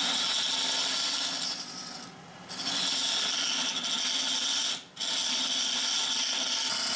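Wood lathe turning a wood and epoxy resin blank, a hand tool cutting and scraping the spinning piece with a steady hiss. The sound dips briefly about two seconds in and drops out sharply near five seconds.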